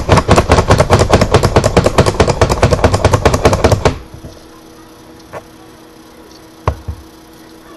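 Pampered Chef plunger-style food chopper pumped rapidly to chop pecans, a fast run of sharp clacking strokes at about six to seven a second that stops about four seconds in. Two single knocks follow later.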